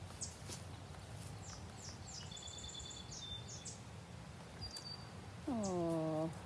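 Outdoor background with a few faint, high bird chirps, then about five seconds in a person's drawn-out vocal exclamation that falls in pitch, the loudest sound here.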